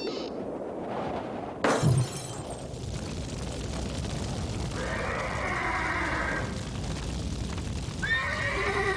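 A sudden crash about two seconds in, then a horse neighing: one call around the middle and a rising whinny near the end.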